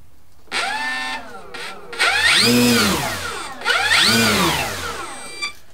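E-flite Ultimate 3D model biplane's brushless electric motor and propeller on a bench test: a short blip of throttle about half a second in, then two throttle runs, the whine rising in pitch and falling back each time.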